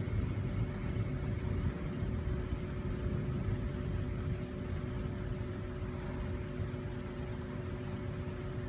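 Low rumble of distant thunder slowly dying away, with a faint steady hum under it.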